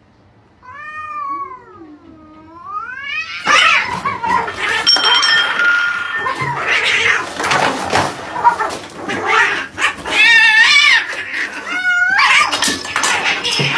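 Cats fighting. One long wavering yowl comes first; then, about three and a half seconds in, a loud, noisy scuffle of screeching and yowling begins, with two more warbling yowls near the end.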